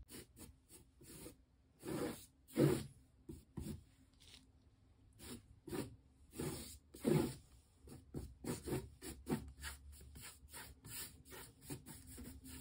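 Irregular rubbing and scraping sounds: a string of short, uneven strokes, loudest a couple of seconds in and again about halfway through.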